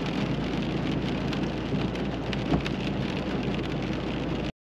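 Rain hitting the windscreen and roof of a pickup truck, heard from inside the cab as a dense hiss of small ticks over the vehicle's steady low engine hum. The sound cuts off suddenly near the end.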